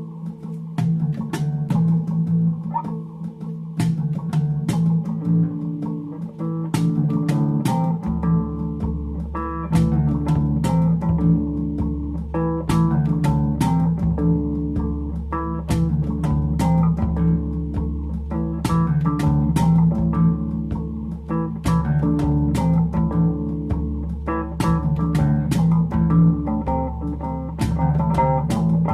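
Instrumental background music with guitar and a steady beat; a deep bass line comes in about eight seconds in.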